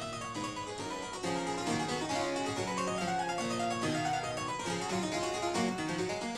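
Background harpsichord music: a brisk run of short notes in several lines at once.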